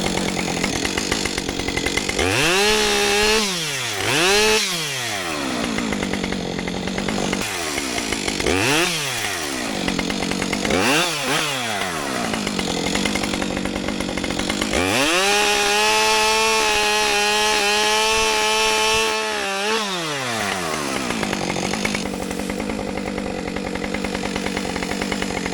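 Two-stroke chainsaw revved in several short bursts, dropping back each time. About fifteen seconds in it is held at high revs for around four seconds, then falls back to idle.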